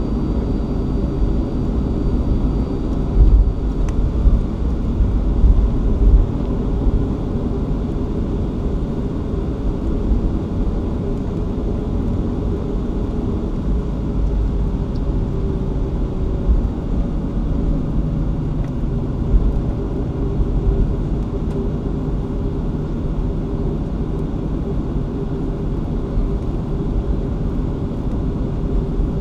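Boeing 737-500 taxiing, heard from inside the cabin: a steady rumble and hum from its CFM56 engines at taxi power and the wheels rolling on the taxiway, with a few louder low thumps between about three and six seconds in.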